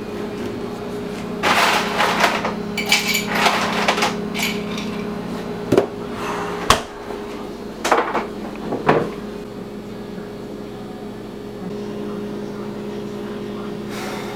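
Fixing a drink in a kitchen: a refrigerator door, a drinking glass and bottles handled on the counter, giving a run of clatters, clinks and knocks, the sharpest about a third of the way through. A steady low hum lies beneath, and the last few seconds are quieter.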